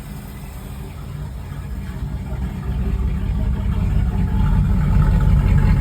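A Camaro's V8 engine running, growing louder about two seconds in. The owner says an engine knock can be heard in it.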